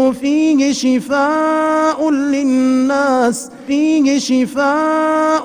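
A male reciter chanting the Quran in a melodic tajweed style, drawing vowels out into long held notes with a few short breaks between phrases.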